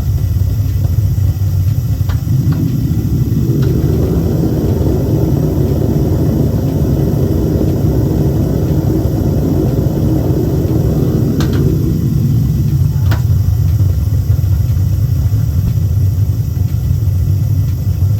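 Home-made metal-melting furnace's burner running with a steady low rumble, a fuller, brighter layer joining in from about 3 s to 11 s, and a couple of light clicks near the middle.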